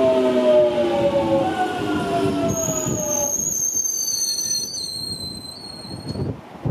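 A train slowing down: a whine of several tones falls steadily in pitch, then high-pitched squealing from the wheels and rails takes over for a few seconds and fades out.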